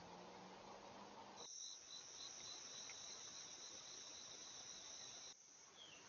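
Faint, steady high-pitched trilling of insects, with a fainter pulsing trill just below it. It starts suddenly about a second and a half in and cuts off abruptly near the end, leaving faint hiss.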